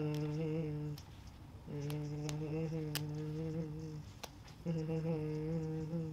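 A man humming three long, steady low notes with short pauses between them, and a few short sharp clicks scattered among them.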